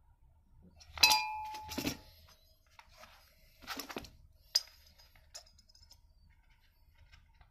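Small metal engine parts and a steel caliper clinking against each other and the bench as they are handled: two ringing clinks about a second in, the first the loudest, then a short rattle, and a sharp tick with a brief high ring a little after the middle.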